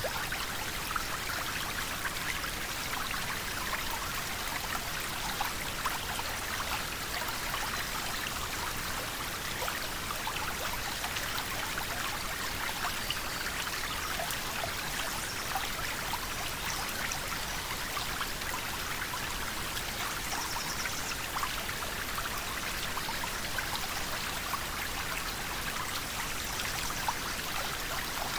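A river flowing: a steady rush of water, brightest in the mid to high range, with many small splashes and gurgles running through it.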